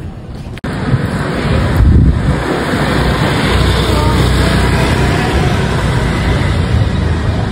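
Outdoor street ambience: wind buffeting the phone's microphone over city traffic, coming in abruptly about half a second in, with faint voices in the background.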